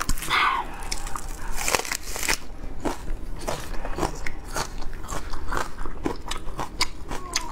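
Close-miked crunching and crackling from large whole prawns being handled and eaten: irregular sharp clicks, several a second.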